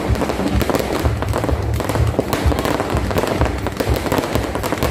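Fireworks going off in rapid succession: a dense run of sharp pops and crackles.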